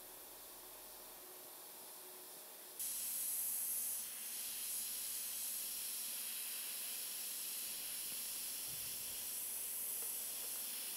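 Steady hiss of compressed air through a gravity-feed airbrush as fine detail is sprayed, louder from about three seconds in.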